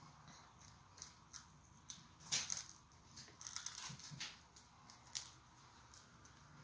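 Faint crunching and clicking of a baby chewing on a cracker, in short irregular crackles, the loudest about two seconds in, with a low steady hum underneath.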